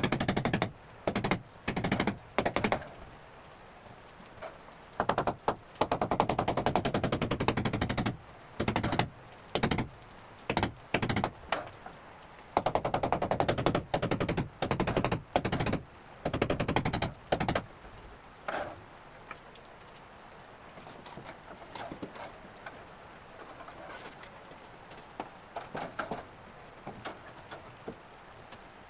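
Electric hammer drill boring into a plastered masonry wall in repeated short runs, each lasting from a fraction of a second to about two seconds, with a rapid rattling hammer action. After about eighteen seconds the drilling stops and only scattered light knocks and clicks remain.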